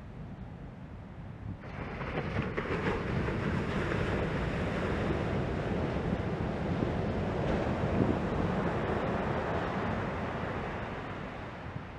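Ocean surf: a wave breaking and washing up the beach. The rush swells about two seconds in and fades slowly near the end.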